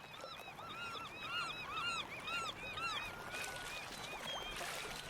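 Birds calling: a rapid run of short, arching calls for about three seconds, then a few thinner, steadier whistled notes over a background hiss.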